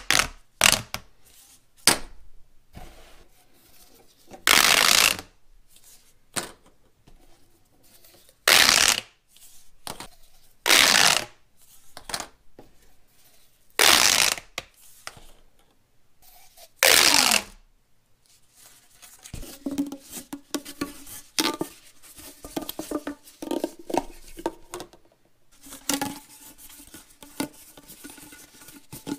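Toys being handled: five loud noisy strokes of about half a second each, roughly three seconds apart, with small clicks between, then from about two-thirds of the way in a busy run of quick clicks and taps with short ringing tones.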